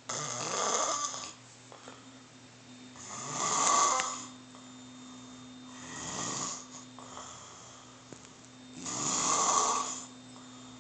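A person snoring: four snores, about one every three seconds, the second and fourth loudest.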